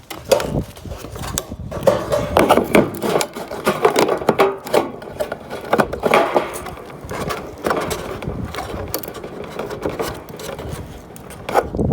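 Metal hinged gutter guard scraping, rattling and clicking against the gutter as it is worked into place and its clips are snapped on, in irregular scrapes and knocks.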